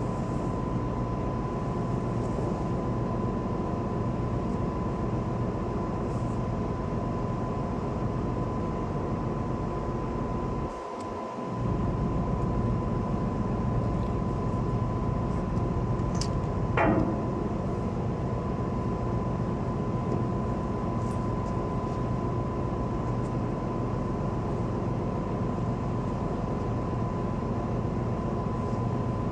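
Steady drone of a ship's engine machinery, a constant hum with a thin high tone running through it. About seventeen seconds in, a short sound slides down in pitch.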